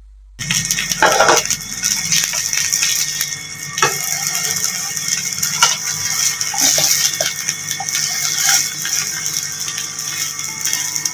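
Pancakes frying in a nonstick pan, a steady sizzle that starts suddenly about half a second in, with a slotted spatula scraping and knocking against the pan a few times as they are turned.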